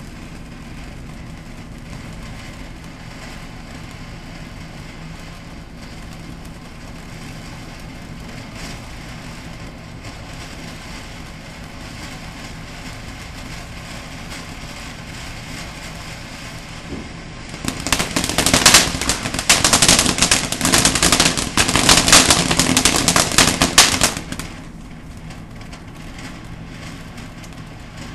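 Ground fountain firework spraying sparks with a steady hiss; about two-thirds of the way through it breaks into loud, rapid crackling for about six seconds, then falls back to the hiss.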